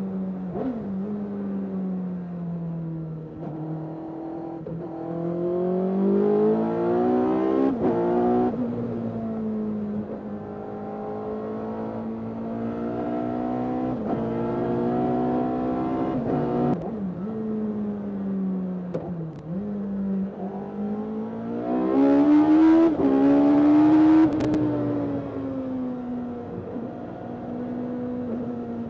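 Suzuki Hayabusa inline-four engine of an MK Indy sports car, heard onboard, pulling through the gears: the revs climb and fall again and again, with a short sharp crack where the pitch drops at each gear change. The hardest and loudest pull comes about three quarters of the way through.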